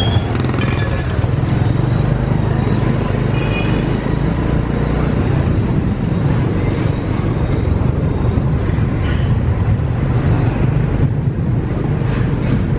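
Motor scooter engine running steadily as it carries a passenger along a city street, with surrounding motorbike and car traffic and wind on the microphone.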